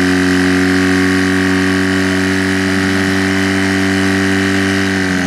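Portable fire pump's engine running steadily at high speed, driving water through the hoses to the spraying jets; its pitch dips slightly near the end.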